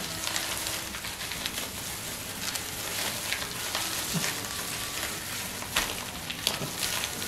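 Dry nori sheet crackling and thin plastic food-prep gloves rustling as hands fold the seaweed around a rice triangle: a steady fine crackle dotted with small ticks.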